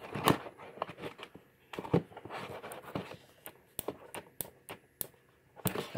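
Audio-Technica ATH-M40x headphones clicking as the ear cups fold inwards on their plastic hinges: a string of short, sharp, irregular clicks over light handling rustle.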